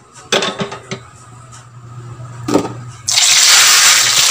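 A few knocks and clinks from a glass lid being lifted off a stainless steel pot. About three seconds in, a loud, steady sizzle starts: tilapia frying in oil in a wok.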